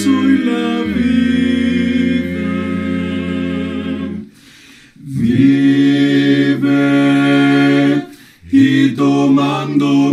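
Male vocal quartet (two tenors, baritone and bass) singing a Spanish hymn unaccompanied, holding long sustained chords. The singing breaks off briefly twice, about four seconds in and again near eight seconds.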